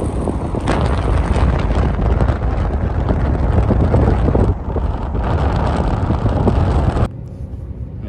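Road and wind noise of a car travelling at speed: a loud, steady low rumble with rushing wind, dropping suddenly to a much quieter cabin hum near the end.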